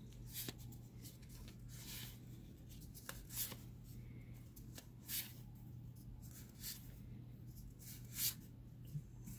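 Magic: The Gathering cards from a freshly opened booster pack being handled and flipped through: about half a dozen faint papery swishes and rustles, over a low steady hum.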